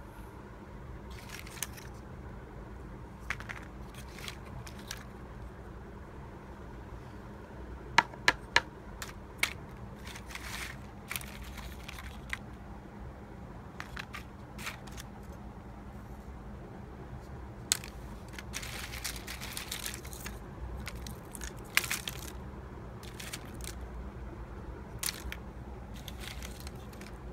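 Dry agarwood (gaharu) chips clicking and rustling against each other and the woven plastic mat as they are handled, in scattered bursts over a steady low background hum. A quick cluster of sharp clicks about eight seconds in is the loudest moment, and there is denser rustling a little past the middle.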